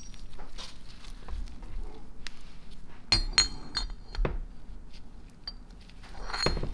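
Steel parts of an Ingersoll-Rand twin-hammer impact mechanism clinking together as the greased hammers are seated in the hammer cage and the pins slid in. Light handling clicks, then a run of sharp ringing clinks about three seconds in and one more near the end.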